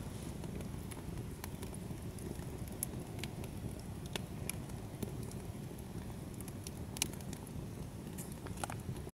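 Wood campfire burning: irregular sharp crackles and pops of the burning logs over a steady low rumble of the flames.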